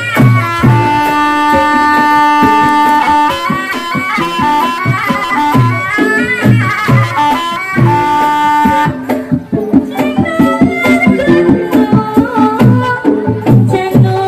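Live ebeg (kuda lumping) accompaniment music: a reedy wind melody with long held notes over regular kendang drum strokes. About nine seconds in the wind melody stops and dense drum strokes carry on.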